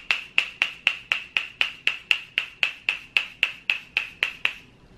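Morphe setting spray being pumped at the face in fast repeated spritzes, about four a second, each a short sharp hiss of mist; the spraying stops near the end.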